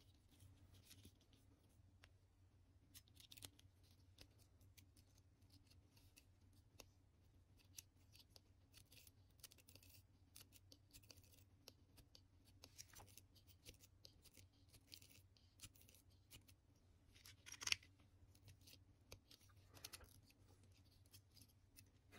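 Near silence, broken by faint, scattered small clicks and scrapes of hands working on an OO gauge model locomotive, with a slightly louder click near the end, over a faint steady hum.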